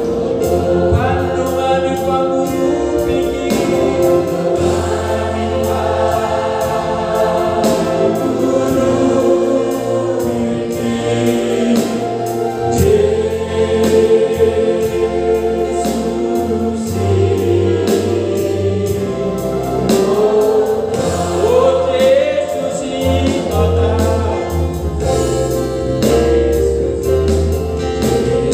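A congregation singing a Batak-language hymn, accompanied by an electronic keyboard with a steady beat.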